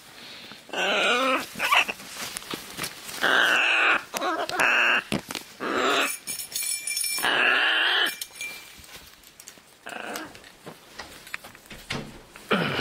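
Scarlet macaw calling, a series of about six loud calls of half a second to a second and a half each, with scattered clicks and knocks between them.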